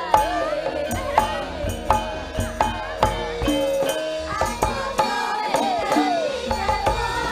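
Javanese gamelan music with regular drum strokes and low thumps. Women sing a swooping melody over it.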